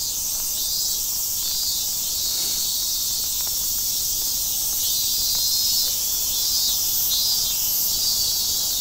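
A steady, high-pitched chorus of insects trilling, with a fine pulsing in its sound.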